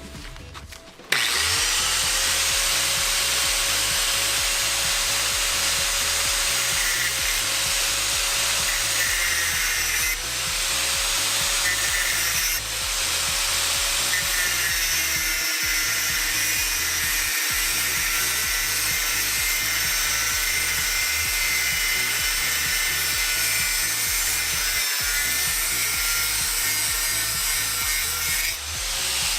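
Electric power tool running continuously as it works steel for small brackets, with a harsh hissing noise and a motor whine. The whine dips briefly about ten and twelve seconds in, then drops to a lower pitch as the tool is loaded harder. Background music plays underneath.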